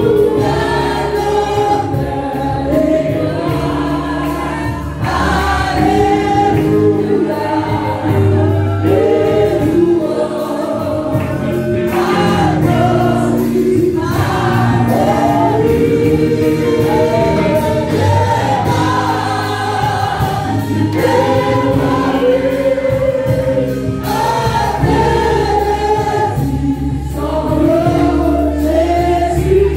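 A congregation singing a gospel worship song, led by a woman singing into a microphone, with steady instrumental accompaniment underneath.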